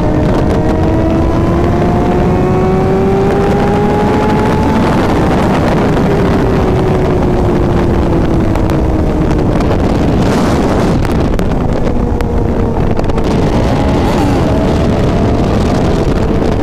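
Sport motorcycle engine climbing in revs for the first few seconds, dropping back as the throttle is rolled off, and picking up again near the end, under heavy wind rush on the microphone.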